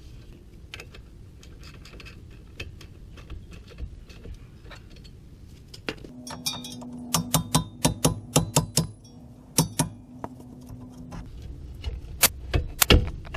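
Sharp metallic strikes and clanks of tools on a car's front suspension as a knuckle spreader is worked to free the lower control arm's ball joint from the steering knuckle. A steady hum runs through the middle with a quick run of strikes, about three a second, and two loud strikes come near the end.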